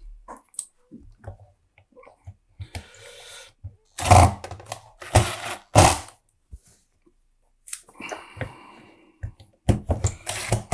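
Handling noise from the hard plastic body of a Henry vacuum cleaner being reassembled: clatter and knocks, with loud bumps about four, five and six seconds in and a cluster near the end.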